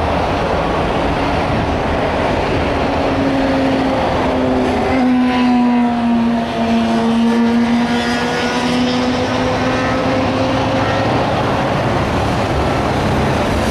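Steady noise of busy multi-lane freeway traffic. From about three seconds in until near the end, a passing vehicle's droning hum wavers gently in pitch over it.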